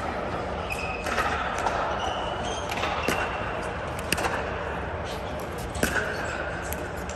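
Pickleball play: a few sharp pops of paddles hitting the plastic ball and the ball bouncing, about a second apart in the second half, over murmured voices.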